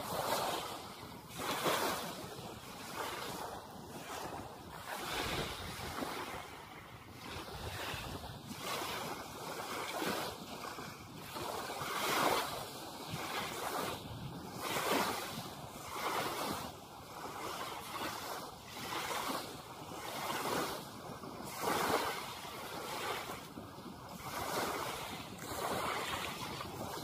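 Small sea waves washing ashore, swelling and fading every second or two, with wind on the microphone.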